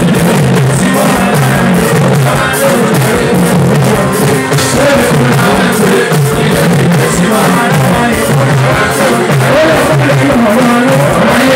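Loud live Fuji music from a band, with a man singing the lead line into a microphone over continuous keyboards and percussion.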